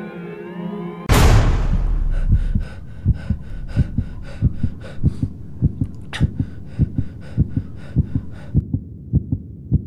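Sirens wailing over traffic, cut off about a second in by a loud booming hit with a low rumble that dies away over a second or so. A steady heartbeat-like thumping follows, about two to three beats a second, growing fainter near the end.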